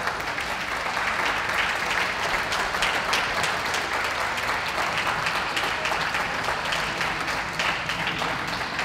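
Audience applauding steadily, a dense patter of many hands clapping, easing off near the end.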